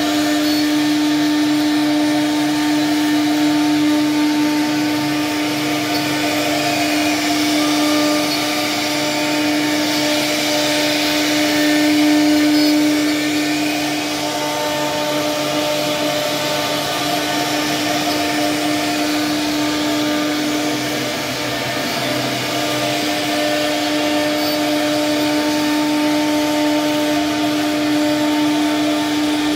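CNC router spindle running steadily with a constant whine as its bit carves a relief pattern into a mahogany panel, the level rising and falling a little as the cutter moves through the wood.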